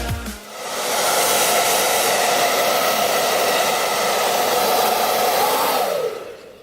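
Electric blow dryer running steadily with a rushing blast and a motor whine. It starts about half a second in, and near the end it is switched off, the whine falling as the motor spins down.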